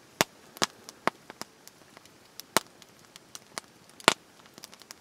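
Wood fire crackling, with irregular sharp pops and snaps.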